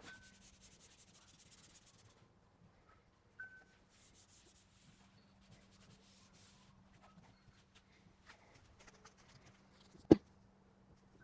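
An alcohol wipe rubbed along a car's door frame in several spells of wiping strokes. A single sharp knock about ten seconds in is the loudest sound.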